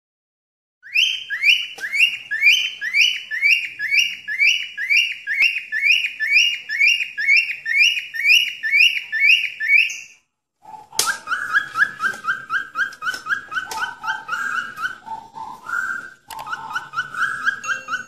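Whistled training calls for cockatiels. A high chirping note repeats about twice a second for around nine seconds. After a short break, a lower note repeats faster, with a few deeper notes mixed in.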